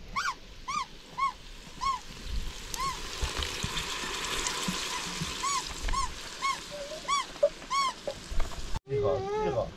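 A dog whimpering over and over: short rising-and-falling whines about twice a second. They pause for a few seconds in the middle, leaving a faint hiss, then start up again.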